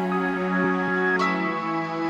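Background music: soft, sustained synth-pad chords with no singing, changing chord about a second in.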